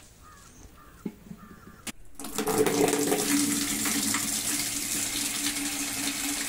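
A stream of water pours and splashes into a plastic bucket. It starts abruptly about two seconds in and then runs steadily.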